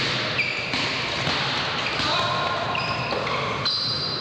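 Basketball being dribbled on a sports-hall floor, with sneakers squeaking in short high squeaks and players' voices echoing in the large hall.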